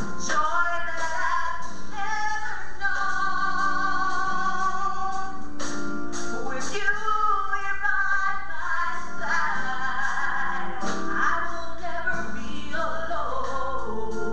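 A woman singing a gospel song into a handheld microphone over instrumental accompaniment, with long held notes.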